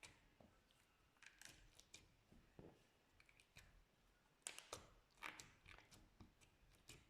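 Slime being squeezed and kneaded by hand: faint, irregular sticky crackles and small pops, with a few louder ones a little past halfway.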